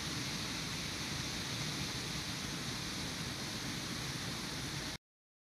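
Steady outdoor background noise, an even rushing hiss with no distinct events, which cuts off suddenly about five seconds in.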